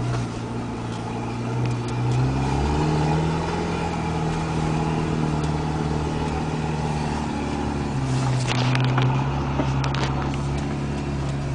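Off-road 4x4's engine running under load, heard from inside the cab; the revs rise about two seconds in and drop back about eight seconds in. A few short knocks and rattles near the end.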